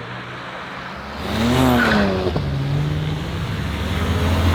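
Car engine running steadily, then revving up sharply about a second in, its pitch climbing and falling back, with a sharp click. It then settles into steady running that grows louder near the end.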